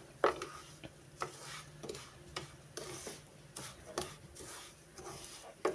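Wooden spoon stirring and scraping semolina roasting in butter across a nonstick pan, in irregular strokes about twice a second, with a sharper knock near the end.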